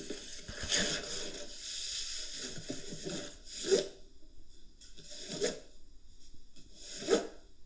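Soft rustling and scraping handling noise, with a few short, sharper rustles about a second in, near the middle and near the end.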